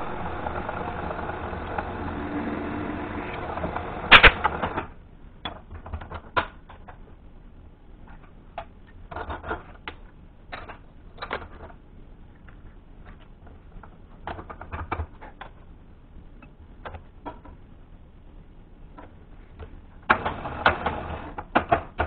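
Milling machine running and cutting a small steel block held in a machine vise, with a loud metallic clank about four seconds in as the cutting stops. Scattered metallic clicks and knocks follow, and the machine runs again near the end.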